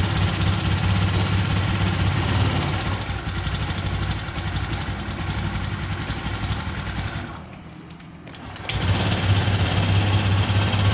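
Honda Vario 125's single-cylinder, liquid-cooled, fuel-injected engine running just after a start-up, with the CVT drive not fitted. It dips about eight seconds in, then picks up again. It runs smoothly with a worn rocker arm and shaft now renewed: the rough head noise is gone.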